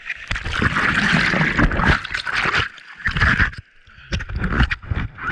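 Sea water splashing and sloshing around a surfboard, heard right at the board: a long rush of splashing over the first couple of seconds, then shorter irregular splashes after a brief lull.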